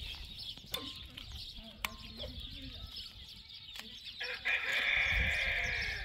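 A rooster crowing: one long, hoarse crow that begins about four seconds in and is the loudest sound.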